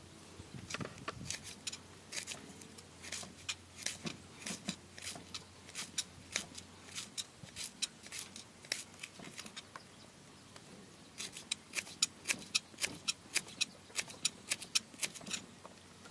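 Kitchen knife slicing lemongrass stalks on a wooden chopping block: a series of crisp knife strokes against the board, about two a second at first, then after a short pause a quicker, louder run of about three a second.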